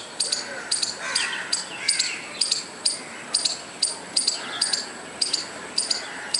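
Squirrel calling with a steady series of short, sharp, high-pitched chirps, about two a second and often in quick pairs.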